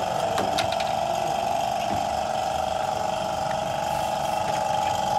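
Steady mechanical drone of a machine running, with a few light clicks in the first second.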